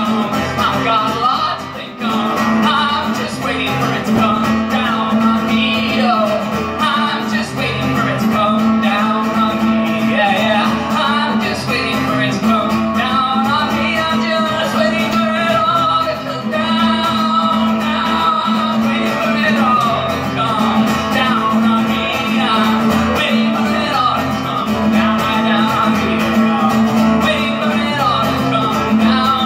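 A man singing while strumming an acoustic guitar in a live solo performance.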